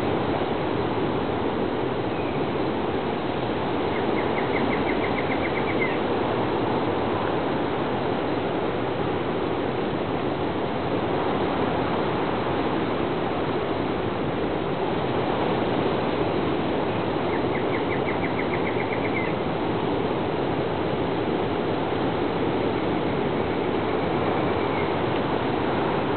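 Steady rushing outdoor noise of the rainforest, with two brief, high, rapid trills, one about four seconds in and another about seventeen seconds in.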